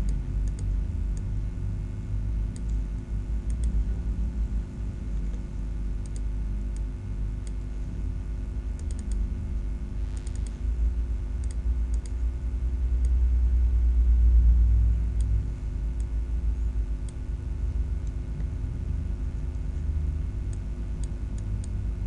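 Computer mouse clicking now and then, single clicks and quick double-clicks with a short cluster near the middle, over a steady low hum that swells into a louder rumble a little past halfway.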